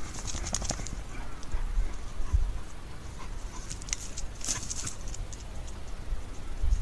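Dogs, including a Shiba Inu, sniffing and panting close up as they nose through dry grass, in quick breathy bunches about a second in and again around four and a half seconds.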